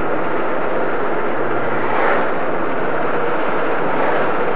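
Steady road, engine and wind noise inside a moving vehicle's cabin, with a brief swell about two seconds in.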